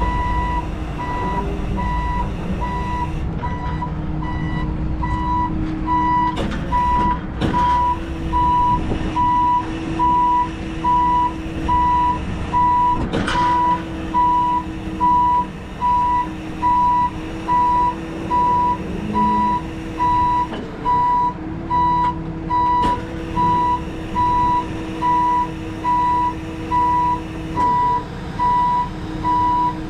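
Tow truck's backup alarm beeping steadily, about once a second, over a steady hum from the truck, with a couple of brief knocks.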